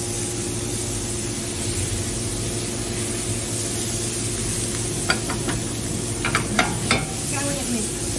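Beef trotter pieces and peppers sizzling in oil in a frying pan while a silicone spatula stirs them, over a steady low hum. About five seconds in come a handful of sharp clacks as the spatula and pan knock.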